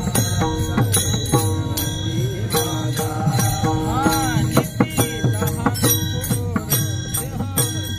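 Marathi devotional kirtan music: jingling hand cymbals keep a steady beat of about two to three strokes a second under held, melodic tones that slide in pitch now and then.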